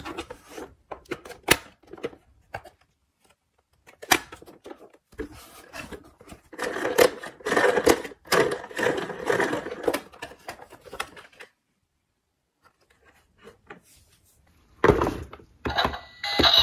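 A plastic toy ambulance being handled in a cardboard box: scattered clicks, knocks and rustles, busiest in the middle stretch. Then a few seconds of near silence, and a couple of thuds near the end.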